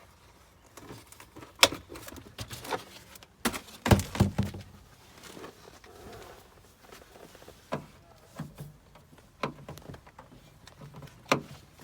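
Scattered plastic clicks and knocks as car door-panel retaining clips are pried out and pushed into place, the loudest cluster about four seconds in.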